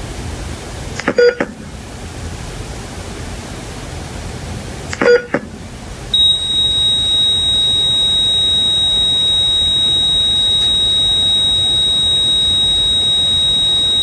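Heart monitor beeping twice, about four seconds apart, then about six seconds in changing to one long, steady high-pitched flatline tone, the signal that the heart has stopped, over a steady hiss.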